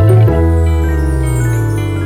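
Background music: a sustained synthesized chord with bell-like mallet tones over a bass line that slides downward.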